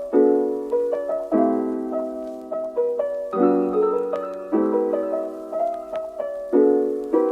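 Soft piano background music: sustained chords struck roughly once a second, with a simple melody above them.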